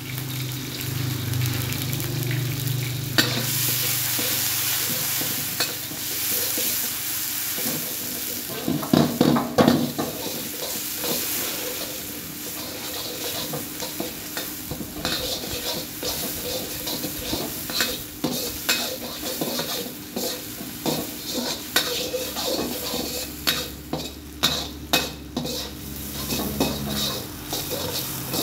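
Sliced garlic and shallots sizzling in hot oil in a metal wok as they fry toward golden and crisp. A metal ladle stirs them, scraping and clinking against the wok, and the clinks come thick and fast from about halfway through.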